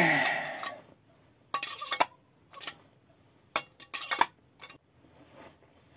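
Metal parts of a Peugeot 103 SPA moped engine, the crankshaft and crankcase half, clinking and knocking as they are handled, in scattered sharp clicks. It opens with a short falling vocal sound.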